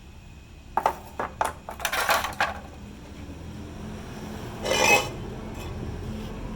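Metal clinking and knocking, several hits in quick succession, then a short, louder noisy burst about five seconds in, over a steady low hum.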